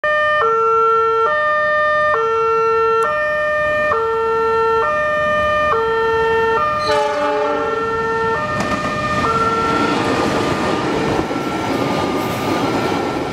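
Level-crossing electronic warning alarm (EWS) sounding a repeating two-tone hi-lo signal, switching about once a second, to warn of an approaching train. From about eight and a half seconds in, the rumble of a freight train of fuel tank wagons passing over the crossing rises under the alarm.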